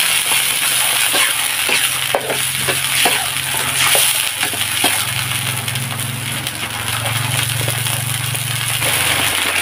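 A thin sauce of vegetables and chillies bubbling and sizzling in a black wok, thickening with a cornstarch slurry, while a metal spatula stirs it with irregular scrapes and clinks against the pan.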